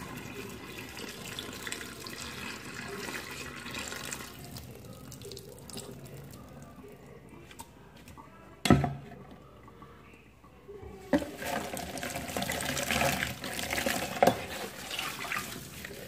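Rinse water poured from a plastic bowl into a stainless steel sink drain, draining off washed hibiscus leaves; the pouring tails off after about four seconds. A sharp knock comes about halfway through, then water splashes into the sink again for the last few seconds.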